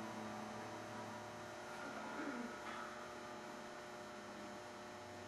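Steady electrical hum made of several fixed tones, with a faint short wavering sound about two seconds in.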